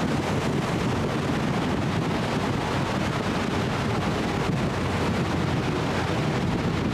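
Steady wind buffeting the microphone on the open deck of a moving river boat, mixed with the rush of water.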